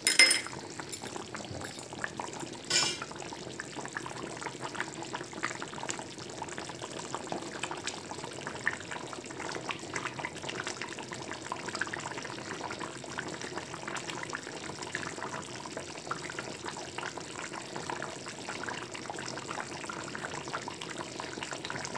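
Fish curry boiling in an open pan: a steady bubbling with many small pops, and two sharp clicks in the first three seconds.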